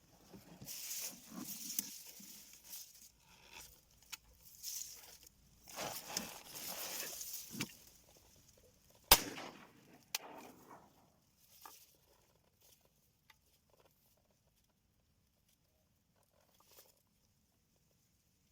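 Rustling and handling noise, then a single shotgun shot about nine seconds in, fired at a duck in flight and missing it.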